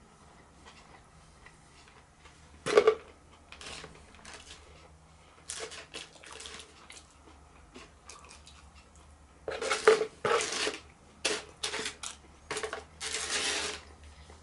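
Crunching and rustling from eating and handling a fried takeaway meal: scattered short crackly bursts, one loud about three seconds in and a dense run of them from about ten seconds on.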